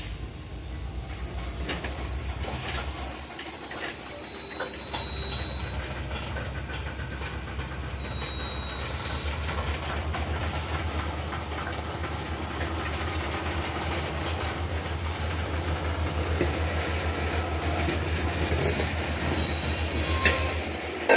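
Open-top hopper cars rolling slowly over the rails during switching: a steady low rumble of steel wheels with light clicks over the joints, and a high wheel squeal that comes and goes in the first half.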